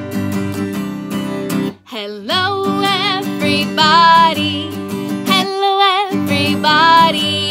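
Music: a steady strummed accompaniment, then, after a brief break about two seconds in, a woman starts singing over it, her held notes wavering in pitch; the opening of a children's hello song.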